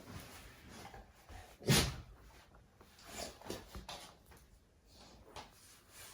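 A few scattered knocks and thumps in a small room. The loudest comes just under two seconds in, with fainter ones later.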